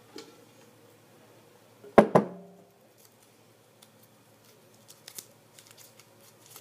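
Two sharp knocks on a hard object a fraction of a second apart, each with a short ringing tone that fades quickly, followed by faint scattered clicks and rustles.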